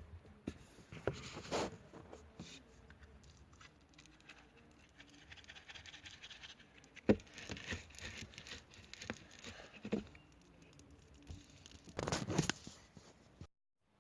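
Faint scattered scratching and tapping handling noises, with a sharp click about seven seconds in and a brief louder rustle near the end.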